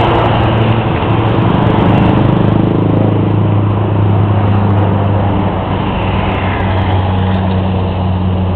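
Small propeller plane in flight, its engine a steady low drone.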